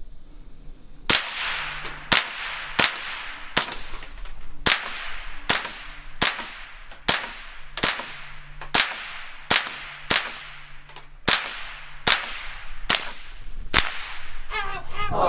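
Suppressed .22 semi-automatic rifle (Smith & Wesson M&P 22 with a Rugged Oculus 22 suppressor) fired about sixteen times in steady succession, roughly one sharp shot every two-thirds of a second.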